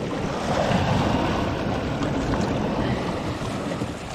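Surf washing against the rocks, swelling to its loudest about a second in and then easing off, with wind rumbling on the microphone.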